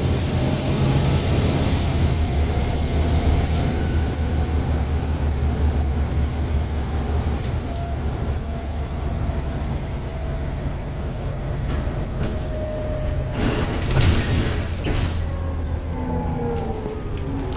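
Volvo B7TL double-decker bus engine running, heard from on board as a steady low drone. A faint high whine fades out in the first few seconds, a brief burst of noise comes about 14 seconds in, and the engine note rises near the end as it picks up.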